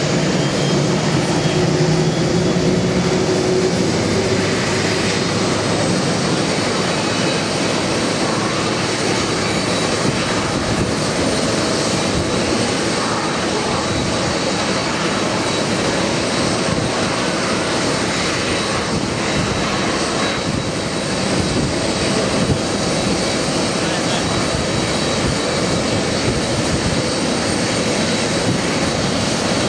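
Boeing 747-400D's General Electric CF6-80C2 turbofans running steadily during pushback, giving a continuous rush of jet noise with a thin high whine on top.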